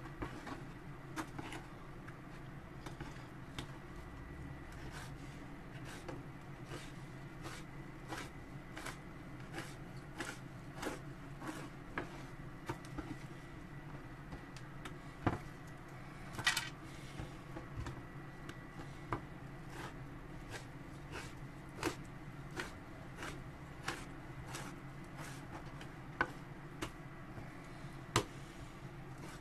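Kitchen knife cutting salted saury fillets into strips on a wooden cutting board: a run of light, regular knocks of the blade on the board, somewhat under two a second, with a brief scrape about halfway through.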